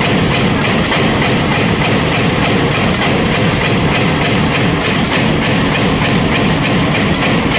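A 5 mm fin press machine running, stamping in a fast, even rhythm of about three to four strokes a second over a steady mechanical din.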